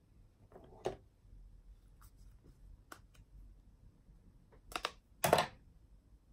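A few scattered clicks and short rustling knocks from makeup being handled: a blush brush and palette picked up, tapped and set down. The loudest two come close together about five seconds in.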